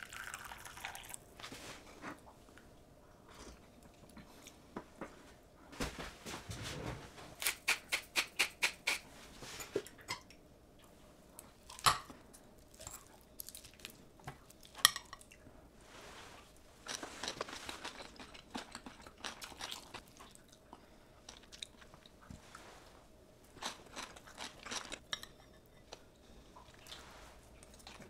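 Metal spoon clinking and scraping against a ceramic bowl while a seasoned cabbage and carrot dish topped with a fried egg is mixed and eaten, with a quick run of clinks about a third of the way in and a few sharper single clinks. Soft chewing and crunching between them.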